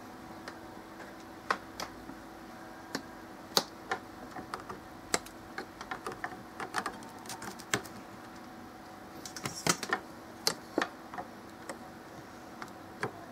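Irregular small clicks and taps of a plastic HDMI plug and adapter being handled and pushed into a USB capture card and a camcorder on a painted steel bracket, with a quick run of clicks about nine to ten seconds in. A faint steady hum lies underneath.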